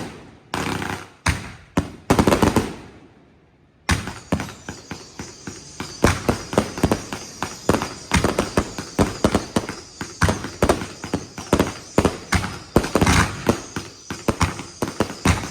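Consumer fireworks going off: a few loud bangs, then about four seconds in a rapid, unbroken string of sharp cracks, several a second.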